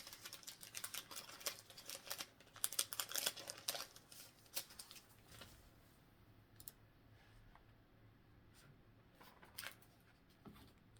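Pokémon trading cards being handled and slid over one another, a quick run of soft clicks and rustles. It thins out after about five seconds to a few faint clicks.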